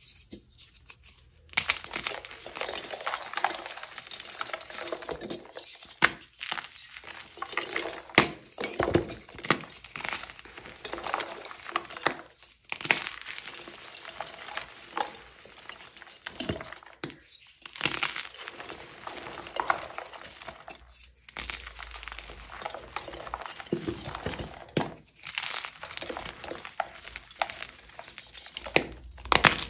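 Soft blocks of dyed gym chalk crushed and crumbled in bare hands: a dense, irregular run of crisp crunches with sharper cracks now and then, beginning about a second and a half in.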